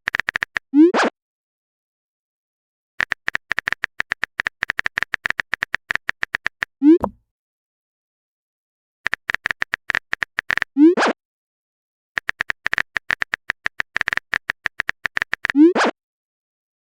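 Phone keyboard typing sound effect in quick runs of clicks, each run ending in a short rising swoop of a message being sent. This happens four times, with silent gaps between.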